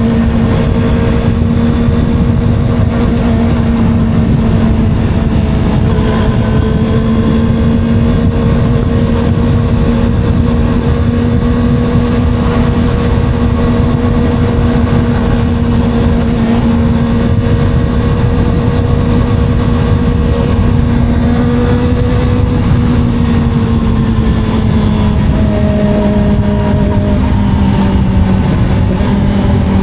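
Small sport motorcycle's engine running at steady, fairly high revs while cruising, its pitch easing down slightly near the end, over heavy wind rumble on the microphone.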